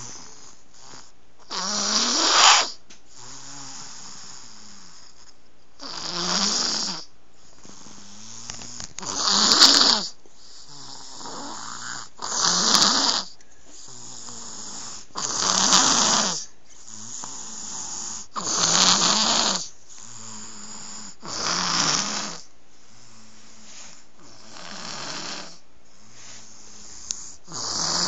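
An 11-month-old baby snoring as loudly as a grown man: a loud snore on each breath, about every three seconds, nine in all, with quieter breathing between them.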